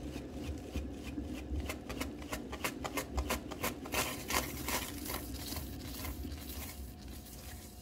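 Hand-spun painting turntable whirring round with a steady low rumble, and a quick run of taps from gloved hands slapping its rim to spin it harder, dying away after about five seconds.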